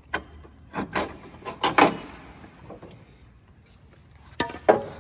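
Sharp metal knocks and clanks in irregular groups, the loudest a pair a little under two seconds in: tools at work on a truck's cab mount as a mounting bolt is worked out.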